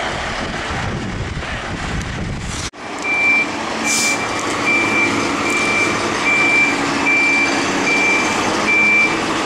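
1998 Dennis Sabre fire engine reversing. From about three seconds in, its reversing alarm beeps in a steady single tone, a little more than once a second, over the engine running. A short hiss comes about a second after the beeps start.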